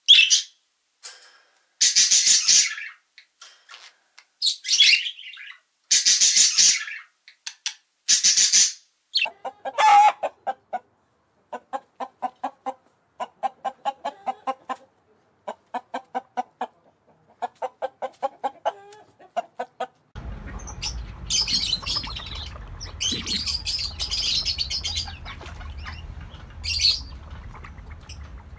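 Macaws squawking: about five loud, harsh calls in the first ten seconds. Then several short trains of rapid low pulsed calls, and in the last few seconds a steady outdoor background with scattered high bird chirps.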